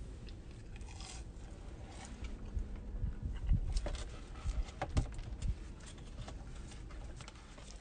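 A person chewing a mouthful of bacon burger, with scattered small clicks and rustles. A few sharper clicks come between about three and five and a half seconds in.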